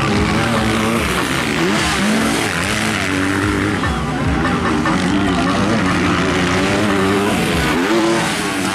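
Motocross dirt-bike engines racing, the pitch rising and falling over and over as the riders open the throttle, shift and brake through the turns.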